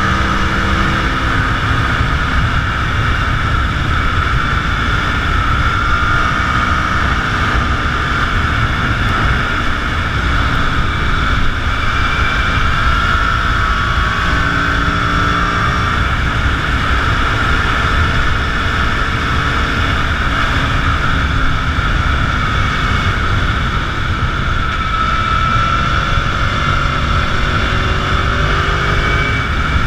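Motorcycle riding at speed, heard from an onboard camera: a steady rush of wind over the microphone, with the engine note underneath rising and falling in pitch as the throttle changes.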